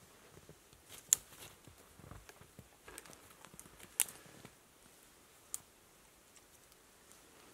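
Dry twigs snapped off a conifer's lower branches by hand: a few sharp cracks, the loudest about a second in and about four seconds in, with faint crackling of branches between.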